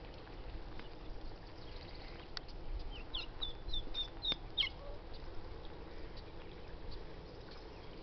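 Young turkey poults peeping: a quick run of about six short, high peeps, some sliding down in pitch, about three seconds in and over within two seconds, with two sharp clicks around them.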